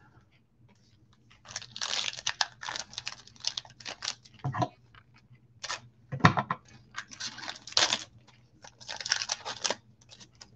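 A foil trading-card pack wrapper being torn open and crinkled by gloved hands, in irregular bursts of crackling with short pauses between.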